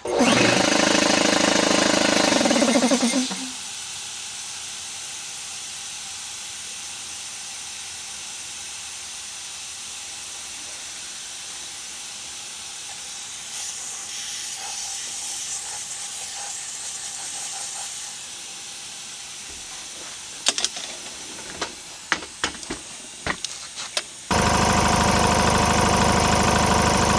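Craftsman Professional air compressor under test after its check valve was cleaned. A loud burst of running and air noise with a rising hum for about three seconds gives way to a steady, quieter hiss. A few sharp clicks and knocks come near the end, then a loud rush of noise starts abruptly about three seconds before the end.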